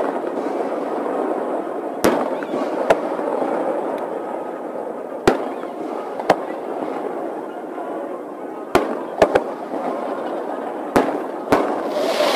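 Aerial fireworks shells bursting overhead: about nine sharp cracks spaced irregularly over a steady background hiss. The recording is sped up, so the bursts come out higher and shorter than real fireworks, without their deep boom.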